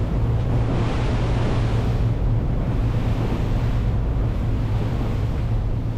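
Steady low drone of the Pershing GTX 116 motor yacht's engines under the rush of water along the hull and wind on the microphone, the yacht running at speed through a full turn.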